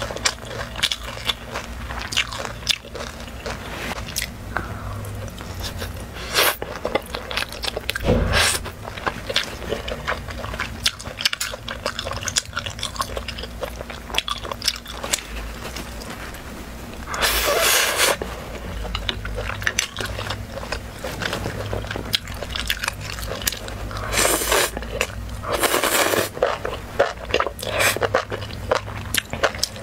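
A person biting and chewing sauced barbecue skewer meat, many small crunching bites, with a few louder stretches of chewing partway through.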